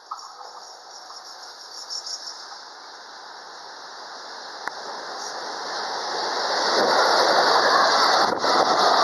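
Container freight train behind an electric locomotive approaching and then passing close by. The noise of its wheels on the rails grows from faint to loud over about seven seconds and then holds steady as the wagons go past.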